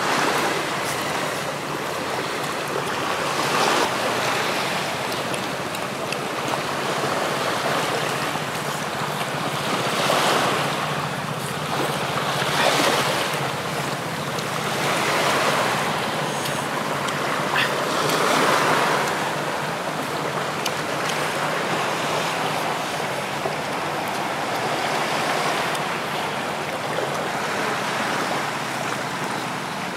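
Sea surf washing on a beach, a steady rush that swells and fades every few seconds as waves break.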